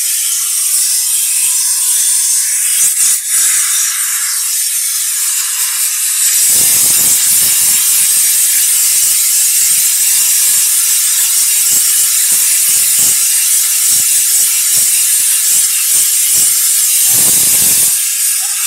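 Compressed-air blow gun hissing steadily as it blows dust out of a Caterpillar generator's cylindrical air filter element. The blast gets louder and fuller from about six seconds in.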